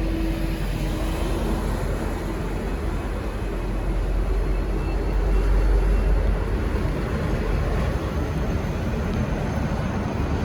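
N class diesel locomotive's EMD 12-645 V12 two-stroke engine working as it pulls away, a deep steady rumble that swells to its loudest about halfway through.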